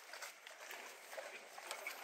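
Quiet outdoor ambience: a faint steady hiss with soft scattered ticks and a few short, faint calls.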